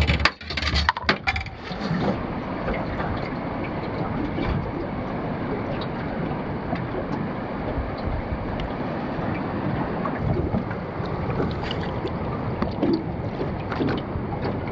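Knocks and clatter as a caught Port Jackson shark is handled over a small aluminium boat in the first two seconds, then a steady rushing noise of wind and water.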